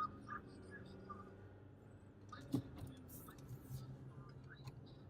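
Low, steady hum of a 2018 Jeep Compass's four-cylinder engine and road drone heard inside the cabin while driving. About halfway through there is a click and the hum settles to a lower pitch.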